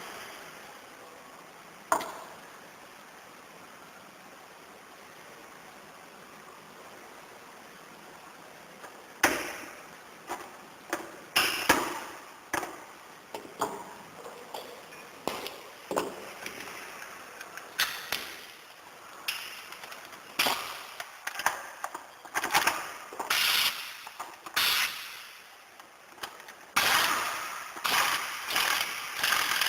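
Hard parts clicking and knocking against each other as something is taken apart or put together: one sharp click about two seconds in, then from about nine seconds on an irregular run of sharp knocks, each dying away briefly.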